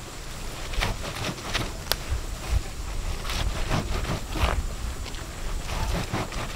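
Hands rubbing and crushing salted rubber-tree leaves against a woven capan tray: repeated scratchy rasping strokes, about two a second, with soft low thumps as the hands press down. This is the leaves being bruised so that their juice comes out.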